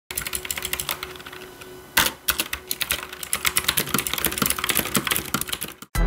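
Fast typing on an AULA F2088 (Fireshock V5) mechanical keyboard with clicky blue switches: a quick, uneven run of sharp key clicks and clacks, with one louder clack about two seconds in. The typing stops just before the end.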